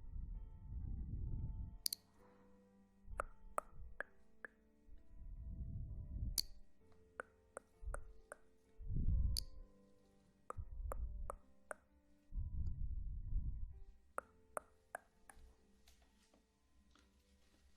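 ASMR trigger sounds: muffled low rubbing swells on the microphone every couple of seconds, the 3D 'eye-touching' effect, with scattered sharp echoing clicks and plops over a faint steady ethereal tone.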